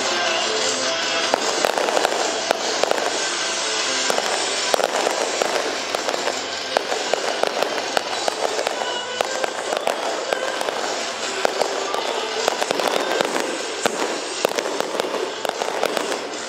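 Aerial fireworks going off in quick succession: many sharp bangs and crackles throughout, with music playing underneath.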